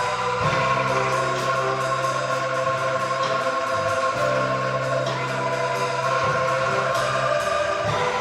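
Angklung ensemble playing: shaken bamboo tubes sounding held chords over a sustained low note, the harmony changing every second or two.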